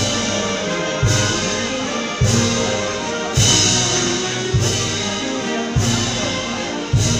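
Brass band playing a slow march, with trumpets and trombones over a bass drum struck about once a second.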